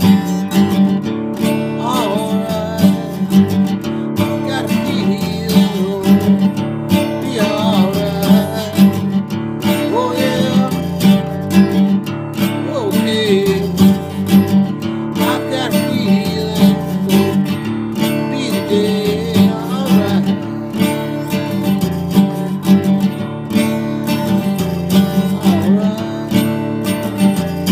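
Acoustic guitar playing a tune: steady strummed chords with a melody line picked over them.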